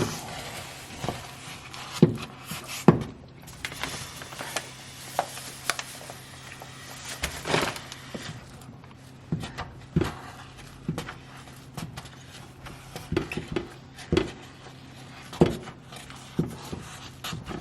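Kitchen work: irregular knocks and clinks of cookware and utensils, scattered every second or two, over a steady low hum.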